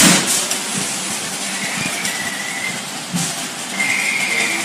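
Kitchen wall-cabinet doors being handled: a sharp knock at the start, then two faint high squeaks about two and four seconds in, over a steady background noise.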